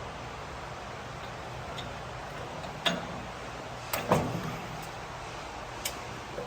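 A few sharp metallic clicks and knocks, the loudest about four seconds in, from pliers and small mower parts being handled. They sit over a steady low hum.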